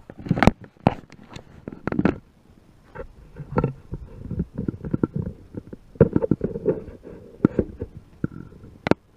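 Handling noise from the camera being picked up and set in a new place: a run of irregular knocks and clicks over low rubbing and rumbling on the microphone.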